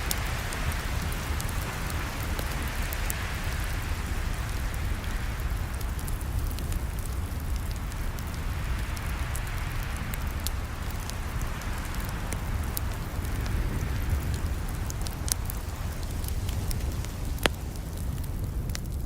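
Campfire burning with a steady low rumble and hiss, scattered sharp crackles and pops throughout, and one louder pop near the end.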